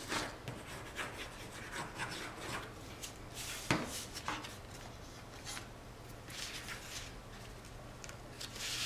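Cardstock rustling and sliding on a cutting mat while a glued paper panel is handled, laid onto a card and rubbed down by hand. The scraping comes in short, soft strokes, with a sharp tap about midway and a louder swish near the end.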